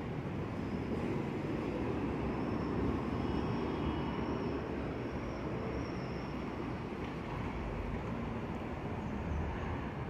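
Steady city background rumble of traffic and transit noise, with no distinct event, and a faint high wavering whine for a few seconds in the first half.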